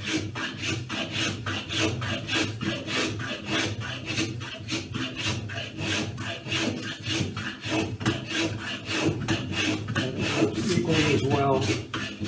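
Small hand plane shaving the edge of a wooden guitar brace held in a vise, in quick short scraping strokes about four a second. It is tapering the brace from the center out to rough in its radius.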